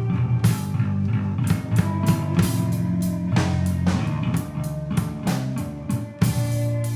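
Live instrumental rock played by a trio: electric guitar, bass guitar and drum kit, with steady cymbal and drum hits over sustained guitar and bass notes.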